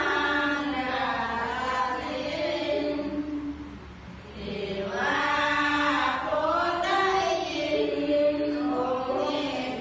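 Buddhist chanting by several voices together, in a flowing, sung-spoken line, with a short breath pause about four seconds in.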